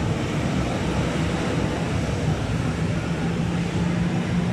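Steady background traffic noise: an even rumble with a low constant hum.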